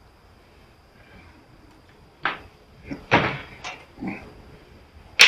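Sheet-metal knocks and clanks from the welder's casing being worked loose by hand: half a dozen separate knocks, with a sharp, loud clank near the end.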